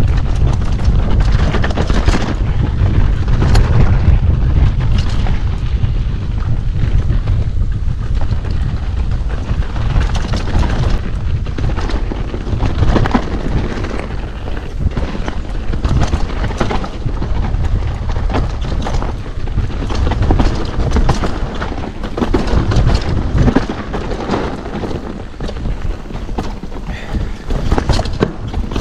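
Wind buffeting the microphone of a mountain bike's onboard camera as a heavy, continuous low rumble, with irregular knocks and rattles from the bike jolting over a rough dirt trail.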